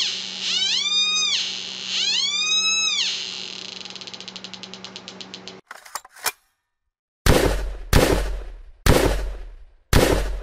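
Transistor oscillator's speaker tone sweeping up and then down in pitch three times, its pitch following the light on the circuit's photoresistor, then breaking into a fast series of clicks that stops abruptly. After a short pause come four loud booming hits about a second apart, each dying away.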